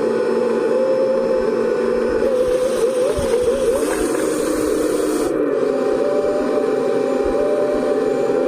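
Background dance music with sustained, wavering tones.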